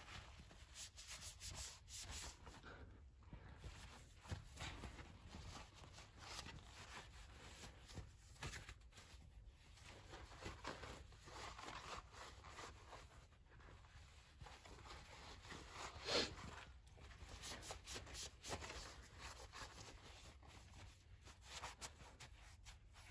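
Faint, irregular rubbing and swishing of a damp cloth towel wiped over an alloy car wheel, in uneven strokes with a slightly louder stroke about two-thirds of the way through.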